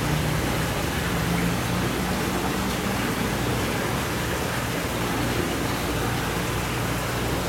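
Fish tank's water circulation: a steady rush of running water with a faint low hum.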